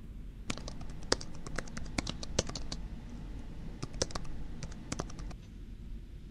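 Laptop keyboard typing: runs of quick keystrokes with a short pause midway, stopping a little after five seconds in, over a low steady hum.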